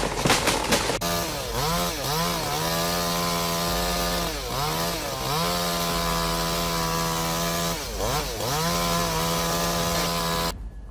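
Chainsaw running at high revs, its engine note dipping and recovering about three times as it is throttled or bogs in the cut, then cutting off abruptly near the end. It is preceded by about a second of crackling clatter.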